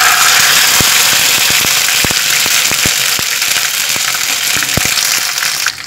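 Ginger-garlic paste frying in hot ghee with cumin seeds: a loud, steady sizzle with scattered crackling pops as the moisture in the paste spits in the fat. It cuts off abruptly near the end.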